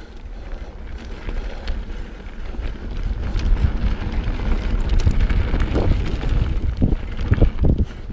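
Wind buffeting the microphone over the rumble of a mountain bike's tyres rolling on a gravel trail, with scattered clicks and rattles from the bike; it grows louder from about three seconds in.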